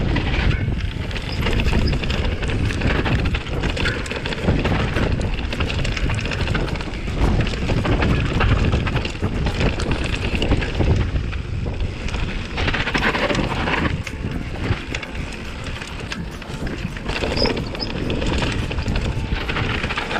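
Mountain bike riding a rough dirt trail: wind buffets the microphone, the tyres run over rain-dampened dirt, and the bike rattles and clatters over the bumps.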